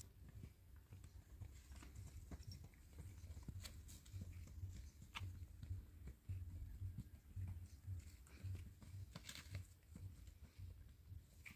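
Quiet footsteps crunching on a stony dirt path, with scattered sharp clicks of stones underfoot over a low, fluctuating wind rumble on the microphone.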